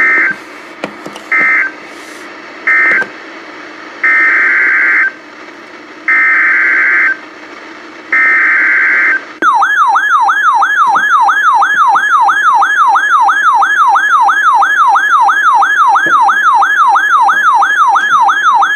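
NOAA Weather Radio SAME data bursts, a harsh two-tone digital screech: three short end-of-message bursts, then three header bursts about a second long, each repeated about two seconds apart. Then, about halfway in, the Midland weather radio's own alert alarm starts: a loud warbling tone that sweeps up and down about three times a second, signalling that a new warning has been received.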